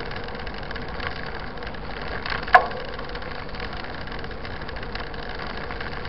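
Soul SL 129 29er mountain bike rolling over a rough paved road, heard from a camera mounted on the bike: a steady rattle and road noise, with one sharp click about two and a half seconds in.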